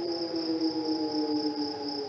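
Civil-defence siren sounding for the annual 20 July commemoration of the 1974 Turkish occupation of northern Cyprus, its tone sliding slowly down in pitch. A steady high insect buzz runs underneath.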